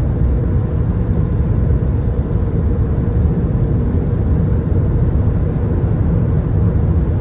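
Steady road and tyre noise inside the cabin of a 2017 Toyota Prius Prime at freeway speed on a wet road.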